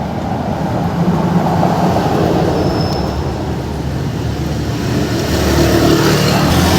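Road traffic: a motor vehicle's engine running close by, with a steady rumble that grows louder near the end.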